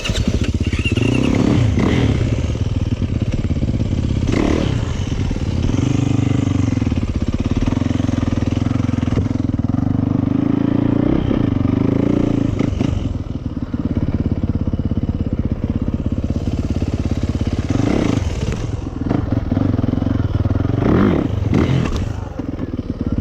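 Yamaha YZ450FX single-cylinder four-stroke dirt bike engine being ridden through a slow, technical line, its revs rising and falling with the throttle. A few knocks and clatters from the bike over rocks stand out.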